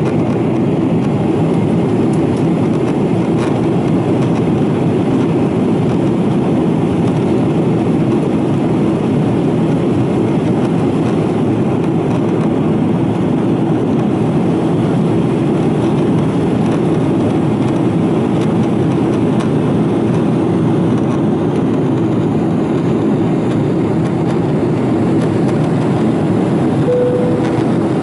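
Steady cabin noise inside a Boeing 777-200ER in flight: the even drone of its Pratt & Whitney PW4074D turbofans and the airflow past the fuselage, with a steady hum underneath. A brief single tone sounds near the end.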